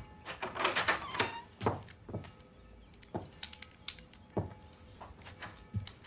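Clicks and knocks of a door lock and latch being worked, a dense run in the first second and a half, then scattered clicks and a couple of dull thumps near the end.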